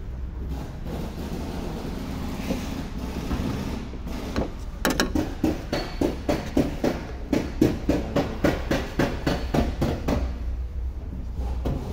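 A run of sharp hammer blows, about three a second, starting about five seconds in and stopping near ten seconds, over a steady low hum.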